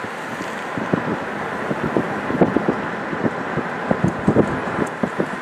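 Wind rushing over the microphone, with irregular low knocks and thumps scattered through it, thickest in the middle.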